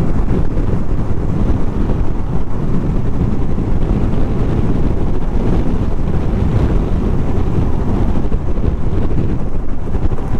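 Wind buffeting the microphone of a moving Yamaha SMAX 155 scooter: a steady, loud, low rushing, with the scooter's engine and tyre noise blended underneath.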